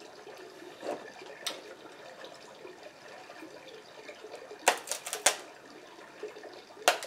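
Wet chewing and mouth sounds, then the shell of a king crab leg cracking and snapping as it is pulled apart by hand: a quick run of about four sharp cracks about two-thirds of the way in, and a few more right at the end.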